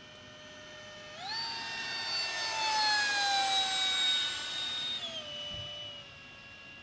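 Electric ducted-fan whine of a Unique Models T-50 RC jet on a 5S battery, throttled up to full about a second in. It grows louder and its pitch slides down as the jet passes, then drops abruptly back as the throttle is cut about five seconds in.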